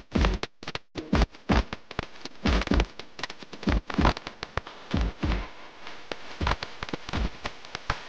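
Folk drumming for a Chhattisgarhi karma dance: loud, deep drum strokes at roughly two a second in an uneven pattern, with lighter taps between them.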